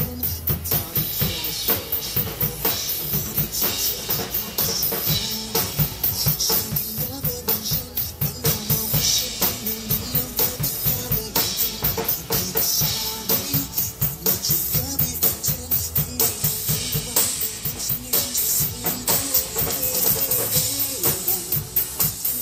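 A drum kit played in a steady beat of kick drum, snare and cymbals over a pop song's backing track.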